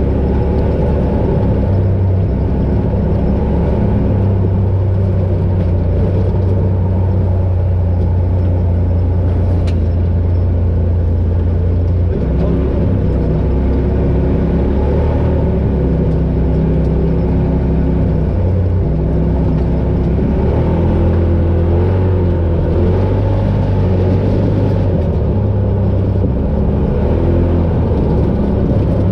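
Polaris RZR Pro XP side-by-side's engine running steadily while driving off-road, its note shifting in pitch a few times as the throttle changes.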